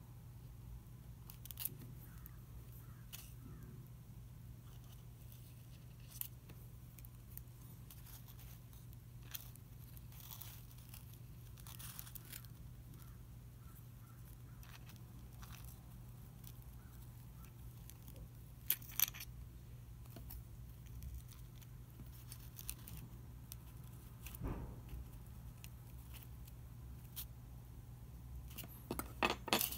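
Faint handling sounds of metal forceps scraping and tapping against a styrofoam spreading board while butterfly wings are set: scattered small clicks and scratches, two sharper clicks about two-thirds of the way through and a quick cluster near the end, over a steady low hum.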